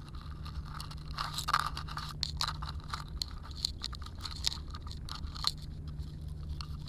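Irregular scraping, crackling clicks as a just-landed snakehead and its lure are handled, over a steady low hum.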